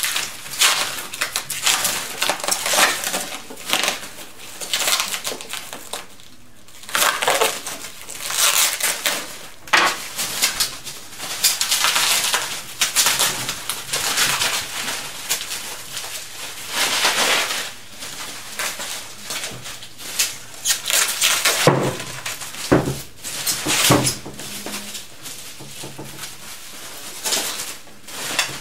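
Plastic stretch wrap and foam packing sheets being cut and pulled off a boxed machine, crinkling and rustling in irregular bursts, with a couple of dull knocks a little before the end.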